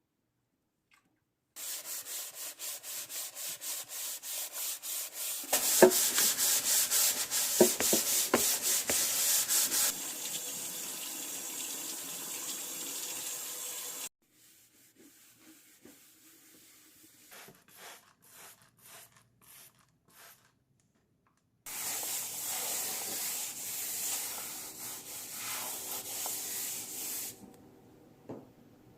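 Rhythmic scrubbing strokes, about three to four a second, in several short clips that start and stop abruptly, with a stretch of steady hiss between them.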